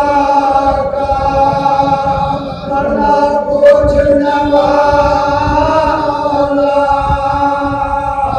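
A chorus of men's voices chanting a Muharram mourning recitation in long, drawn-out held notes through a microphone. A single sharp knock sounds about four seconds in.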